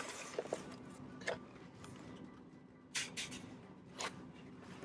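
Cardboard toy box being pulled off a shelf and handled: a few scattered scrapes and knocks, over a faint steady background hum.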